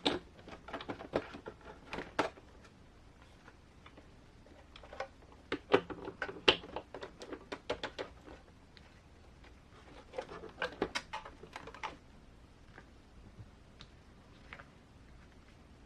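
Quick, irregular small clicks and knocks of an RC crawler wheel and tire being fitted onto the front axle hub and handled, in three bursts with sparse ticks near the end.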